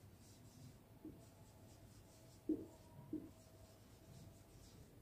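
Faint squeaks and scratches of a marker writing on a whiteboard, in short strokes, with two soft short sounds about halfway through.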